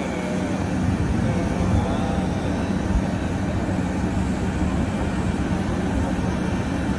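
Steady drone of aircraft or apron machinery running beside a parked Airbus Beluga cargo jet, with a constant low hum and no starts or stops.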